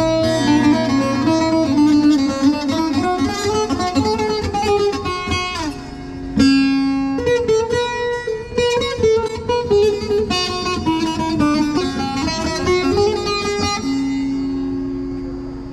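Electric bağlama (saz) playing a fast plucked folk melody with quick runs of notes. A long held note comes about six seconds in, and another near the end rings on and fades.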